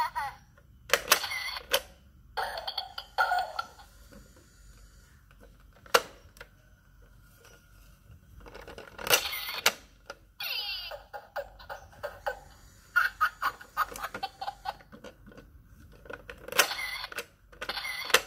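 Toy camera's sound effects from its small speaker as its shutter button is pressed: recorded baby giggles and other short electronic effects in several separate bursts with pauses between, and a sharp plastic click about six seconds in.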